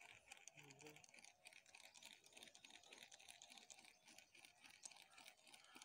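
Faint, rapid ticking and whirring of a Meredith SZY CRO1 baitcasting reel being cranked to retrieve the lure.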